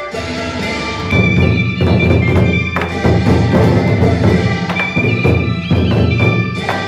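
Instrumental music: a held melody shifts about a second in to loud, fast percussion with a high sustained melody line above it.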